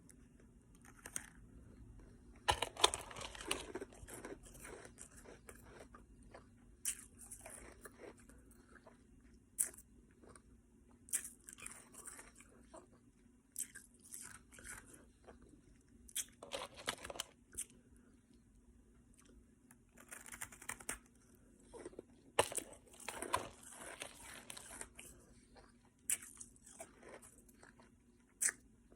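Ice being chewed and crunched between the teeth, in irregular clusters of sharp crunches with short pauses between bites.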